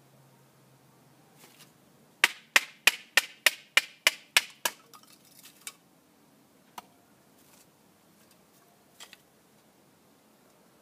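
A quick run of about nine sharp clinking strikes of a Buck knife worked against a stick on a tree stump, roughly three a second. They give way to a few lighter taps and then two single knocks.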